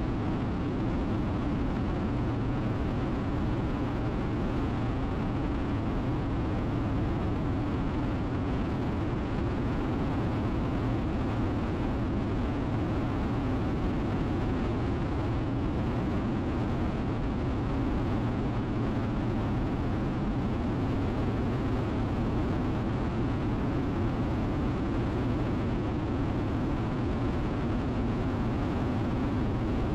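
Steady wind and road noise from a Harley-Davidson Road King cruising at highway speed, with the V-twin engine's drone underneath. It holds even throughout, with no shifts or revs.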